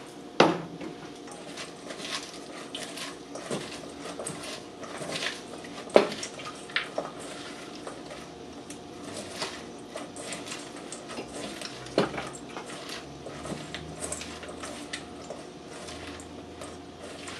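Hands tossing shredded red cabbage slaw in a stainless steel mixing bowl: soft rustling with scattered clinks, and sharp knocks of the metal bowl about half a second in, about six seconds in and about twelve seconds in.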